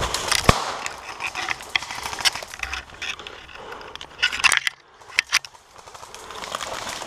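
Footsteps crunching through dry leaf litter and twigs, with scattered sharp knocks and clicks; the strongest knock comes about half a second in and a cluster follows about four seconds in.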